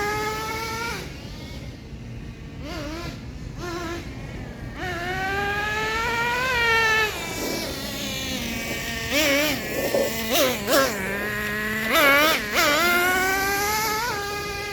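Traxxas T-Maxx's TRX 2.5 two-stroke nitro engine running and being revved with the throttle. Its high whine climbs and falls back, with a series of short quick blips in the middle and again near the end.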